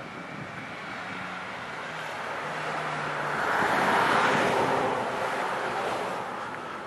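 A vehicle passing: a smooth rush of road noise that builds, peaks about four seconds in, then fades away.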